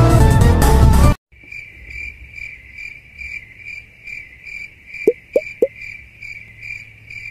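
Loud electronic music cuts off abruptly about a second in. It gives way to a cricket-chirping sound effect, an evenly pulsing high chirp about two and a half times a second: the cartoon gag for an awkward, confused silence. Three quick rising pops sound about five seconds in.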